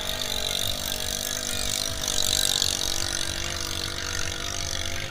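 Racing drag boat's engine running flat out, a steady drone with a slight waver in pitch, over a constant hiss that swells a little about two seconds in.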